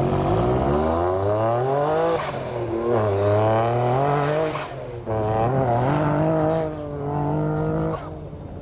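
Noble sports car's engine accelerating hard away. The revs climb steeply and drop back at each of about three upshifts, and the sound falls away sharply near the end as the car gets distant.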